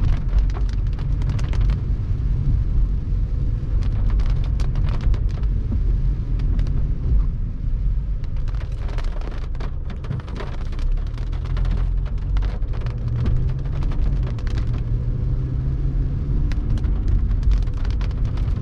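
Car driving in rain, with heavy wind rumble on the microphone and sharp ticks of rain scattered through it.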